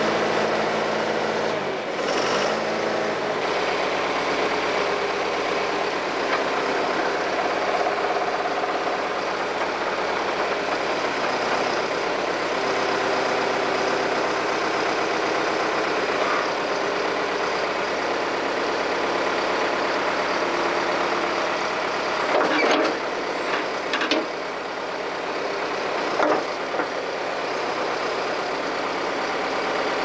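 John Deere 410 backhoe's diesel engine running steadily. A few sharp clanks stand out about three quarters of the way through.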